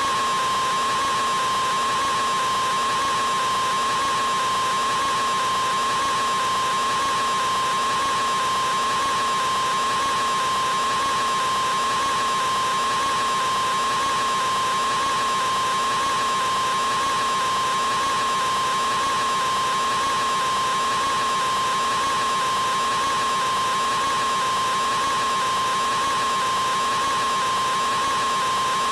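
A man's scream, time-stretched into one unbroken, unchanging high-pitched 'aaaa' tone with a hissy edge and no breath or break.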